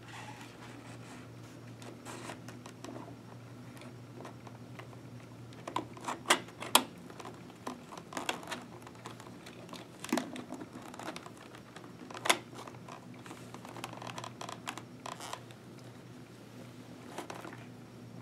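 Hands working an intercom antenna into the gap between a motorcycle helmet's shell and its foam lining. The plastic and padded fabric give scattered rustling and scraping with a few sharp clicks, over a faint steady low hum.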